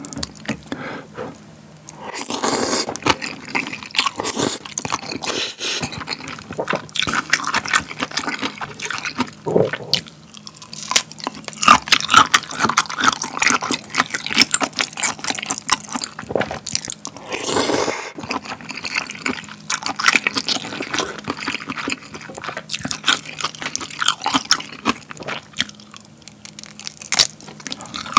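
Close-miked wet eating sounds: spicy cold buckwheat noodles (bibim naengmyeon) in sauce and broth being slurped in several long pulls, with wet chewing and mouth clicks in between.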